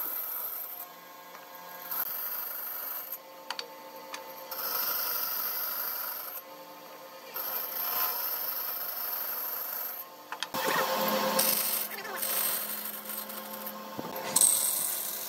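A tool rubbing on wood in strokes of about two seconds, with pauses of about a second between them, and a few light knocks.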